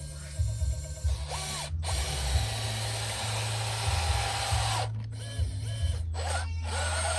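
Gear motors and gearboxes of radio-controlled construction models whirring and grinding, with short rising and falling motor whines. The sound cuts out briefly several times.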